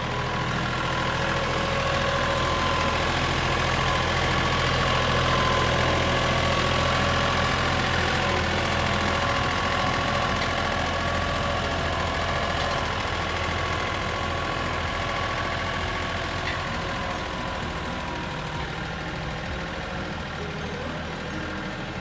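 Compact utility tractor's engine running steadily as the tractor drives, a little louder in the middle and fading slightly toward the end.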